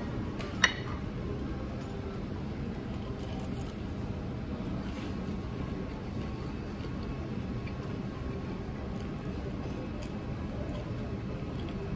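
Steady low room noise of a restaurant dining area, with one sharp clink of a metal fork against a ceramic sauce dish about a second in.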